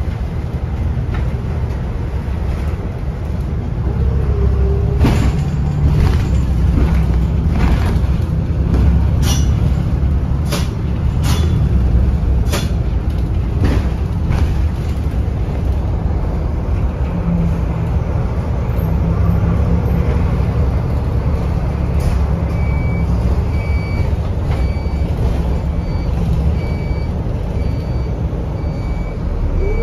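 City bus interior while driving: a steady low engine and road rumble, with a string of sharp clicks and rattles between about 5 and 14 seconds in. From about two-thirds of the way through, a high electronic beep repeats roughly once a second.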